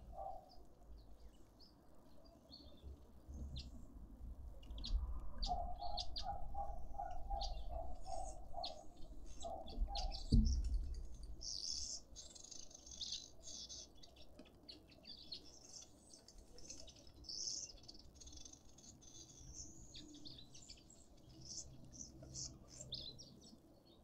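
Small garden birds chirping and twittering around a feeder, with a run of about ten low, evenly spaced notes from another bird about five to ten seconds in, and a single dull thump just after ten seconds.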